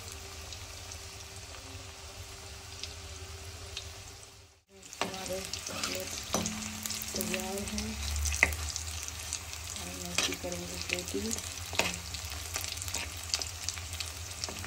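Breaded vegetable cutlets deep-frying in hot oil in a kadhai: a steady sizzle with crackling pops, and occasional clicks of a metal spatula against the pan as the cutlets are turned. The sound breaks off briefly about four and a half seconds in.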